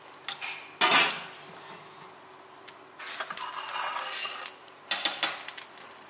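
Kitchen dishes and utensils clattering: a sharp knock about a second in, a run of clinks and scraping midway, then a few more knocks near the end.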